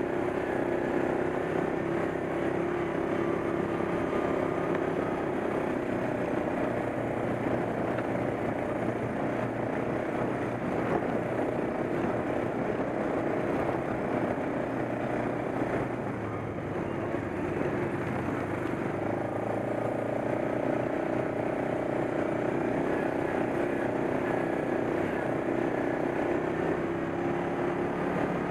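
ATV engine running steadily under way on a gravel trail, heard close from the machine itself. The engine eases off briefly about halfway through, then picks up again.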